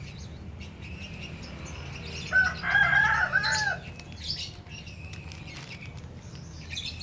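White Chinese goose giving a quick run of three or four honks about two and a half seconds in, with small birds chirping faintly in the background.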